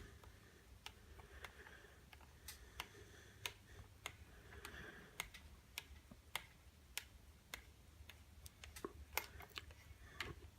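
Faint, sharp metallic clicks, irregular at about one to two a second, from a small hand wrench working the bolts that hold the starter housing onto a chainsaw.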